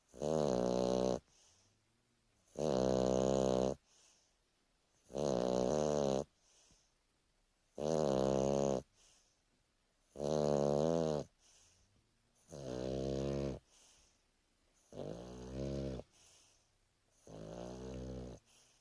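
Boston Terrier snoring in a steady rhythm: eight buzzing, pitched snores, each about a second long, roughly every two and a half seconds. The last few are a little quieter and more wavering.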